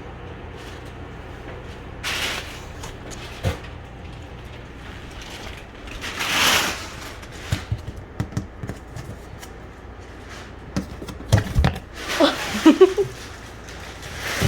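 Handling of a large TV box and its packaging: swishes of cardboard and foam sliding, scattered knocks and clicks, and a louder cluster of scraping and squeaking near the end.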